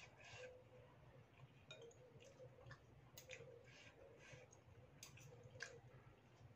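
Faint clicks and clinks of a metal fork and spoon against a ceramic bowl of noodle soup, with quiet chewing.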